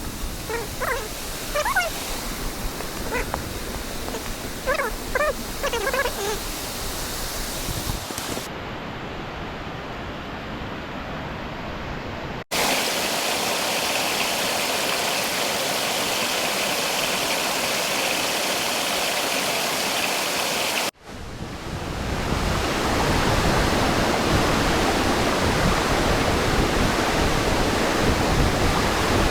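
Steady rush of a waterfall, broken by abrupt cuts between clips and loudest in the last third. For the first several seconds frogs give short repeated calls over the water.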